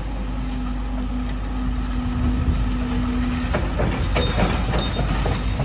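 A vehicle engine running with a steady hum over a low rumble. The hum stops about three and a half seconds in.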